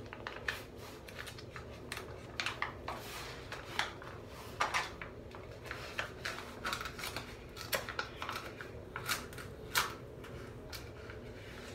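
Crinkling and rustling of a foil-and-plastic sheet-mask packet being handled and opened by hand: a scatter of short, irregular crackles over quiet room tone.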